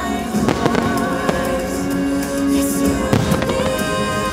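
Aerial fireworks bursting with several sharp bangs over the show's soundtrack music.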